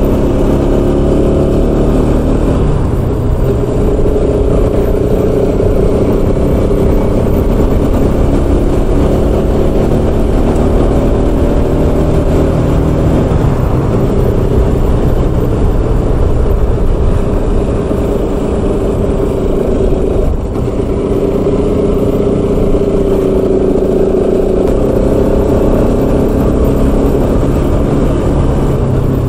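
Motorcycle engine running at a steady cruise under a constant rush of wind on the helmet-mounted camera's microphone, the engine note shifting slightly about halfway through and dipping briefly near twenty seconds in.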